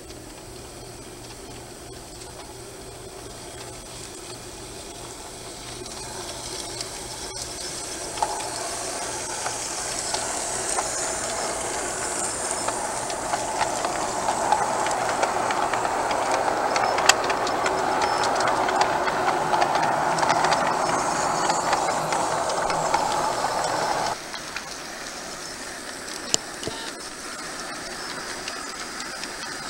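G scale model freight train running on garden track: wheels and locomotive motors rolling with a steady hiss and occasional clicks, growing louder as the cars pass close by, then dropping off sharply about 24 seconds in.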